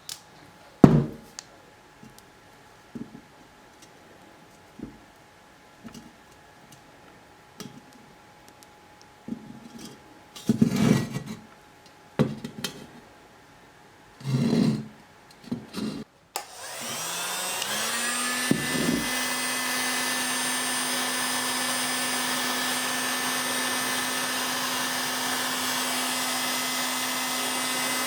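Scattered knocks, taps and clatters of workshop handling, then about sixteen seconds in a hand-held electric blower switches on, spins up over a second or two and runs steadily at one pitch with an airy hiss.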